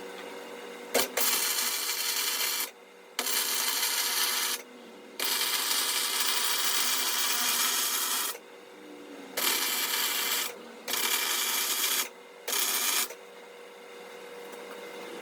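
Welding arc laying beads on a steel car frame: six runs of steady crackling hiss, each starting and stopping abruptly as the trigger is pulled and released, the longest about three seconds.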